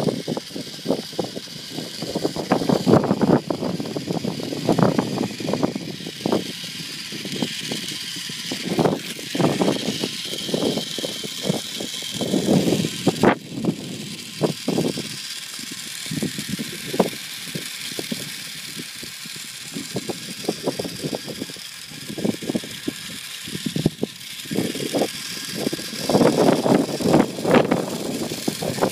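Small electric motor and gearbox of a toy radio-controlled monster truck whining as it drives across sand on paddle tyres, the pitch shifting now and then. Wind gusts on the microphone in irregular low rumbles over it.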